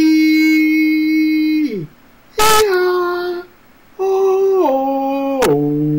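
A man's voice making playful held vocal noises: a long level note, a shorter note that drops in pitch, then a last note that steps down in pitch a few times.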